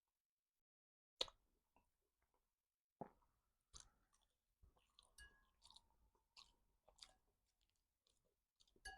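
Faint close-up chewing and mouth sounds of someone eating a meal. A single sharp click comes about a second in, then scattered small clicks and a couple of short clinks follow from about three seconds on.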